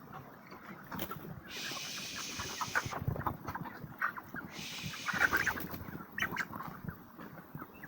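A large flock of broiler chickens, about 35 days old, clucking and calling, with many short calls close together. Twice a hiss lasting about a second rises over them.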